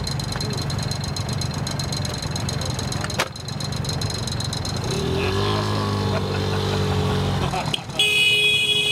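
Honda Motocompo's 49cc two-stroke engine running just after being kick-started, with a rapid buzzing beat. About five seconds in, an engine note rises and then holds. Near the end a horn sounds loudly for about a second.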